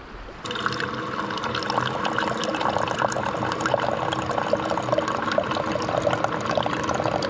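Coffee maker pouring a thin stream of freshly brewed coffee into a stainless steel travel mug: a steady splashing pour with a hum underneath, starting about half a second in.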